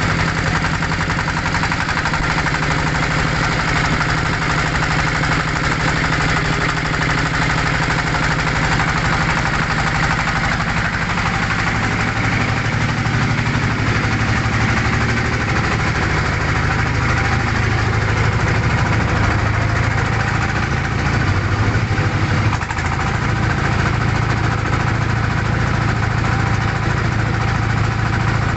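Engine of a wooden motorboat running steadily under way, its low, even note settling slightly lower about halfway through, with water and wind noise.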